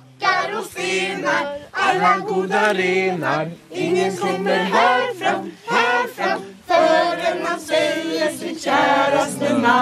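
Several voices singing a song together a cappella, in short phrases with held notes.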